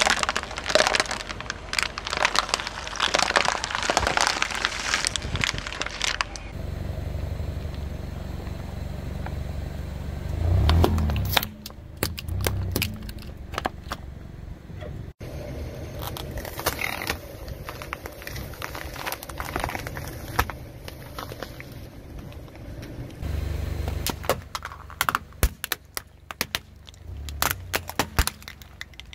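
A car tyre slowly rolling over plastic bottles and cups packed with water beads: thin plastic crackling and crunching in bursts. Between the bursts the car's engine runs low, with a heavy thump about eleven seconds in.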